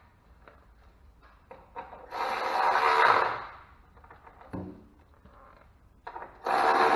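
A plastic engine cover being fitted and handled: a few light clicks, a longer scraping rub about two seconds in, a short dull knock past four seconds, and another rub near the end.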